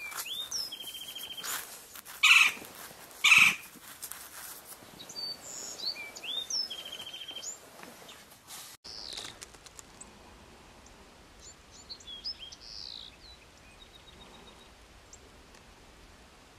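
Small birds chirping and calling in brush, with quick up-and-down chirps and a rapid trill, and two loud sharp calls about two and three and a half seconds in. About nine seconds in the background drops quieter, with only a few faint chirps.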